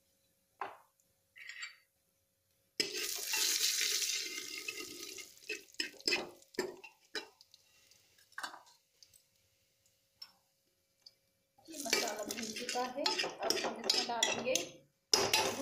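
Steel ladle stirring and scraping cumin seeds and asafoetida frying in oil in an aluminium pressure cooker. About three seconds in comes a couple of seconds of sizzling hiss, followed by scattered scrapes and clinks of the ladle against the pot.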